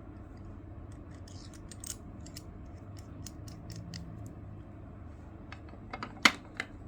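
Small objects being handled: scattered light clicks, taps and brief rustles, with one sharper click about six seconds in.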